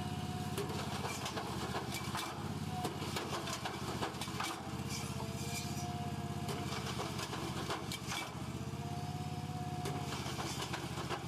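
Engine of a self-propelled tobacco spiker running steadily, with scattered mechanical clicks and knocks.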